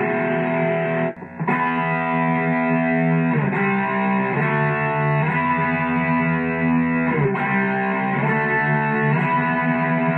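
Distorted electric guitar through a Boss Katana Mini amp, playing a riff of sustained ringing chords with slides between chord positions and a short break about a second in.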